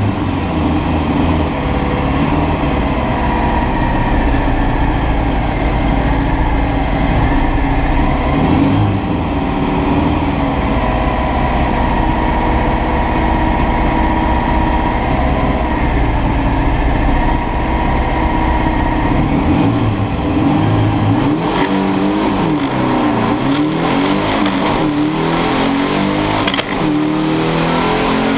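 Drag car's engine heard from inside the cabin, running steadily for about twenty seconds, then revved up and down repeatedly in the last several seconds as the car moves off toward the start.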